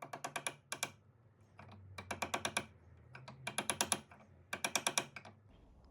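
Metal hammer tapping a twisted silver wire ring on a ring mandrel in four runs of quick, light strokes, rounding the ring and flattening the edges of the twisted rope.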